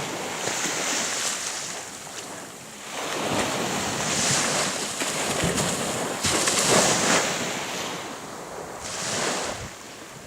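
Sea surf: waves washing onto the shore in several swelling surges, the loudest about two-thirds of the way through, with wind on the microphone.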